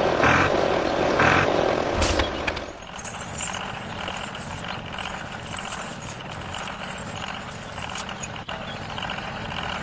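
A vehicle running, louder for the first two and a half seconds and then quieter and steady with a high hiss. There is a sharp click about two seconds in.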